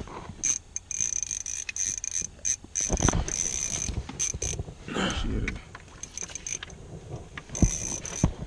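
Ice-fishing reel's drag clicking in a series of short runs as a hooked fish pulls line out against the loosened drag, with a few low knocks in between.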